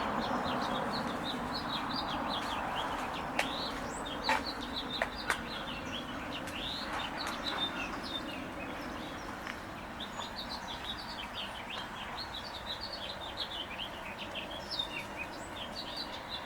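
Small songbirds chirping, many short high chirps overlapping all through, over a steady background hiss. A few sharp clicks stand out about four to five seconds in.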